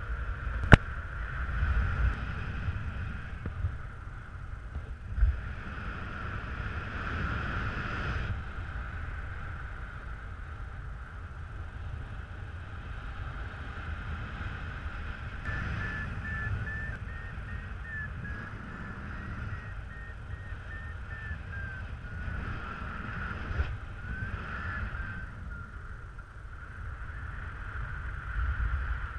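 Wind rushing over the camera microphone of a paraglider in flight, a low rumble that swells and eases, over a steady high whistle-like tone. A string of short high beeps drifts up and down in pitch from about the middle until near the end, and there is one sharp click about a second in.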